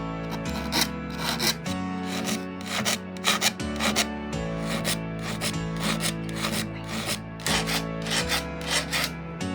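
Repeated strokes of a file rasping across the teeth of a hand saw blade, about two a second. Background music with sustained chords plays underneath.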